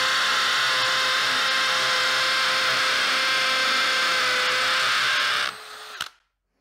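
AEG BSB18BL brushless cordless hammer drill boring a 10 mm hole into a concrete block, its motor running steadily at full speed under load. Near the end it drops off and stops sharply.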